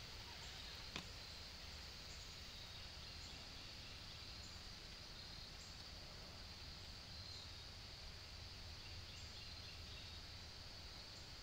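Faint woodland ambience: a steady high-pitched insect hum over a low background rumble, with short high chirps about once a second. A single sharp click about a second in.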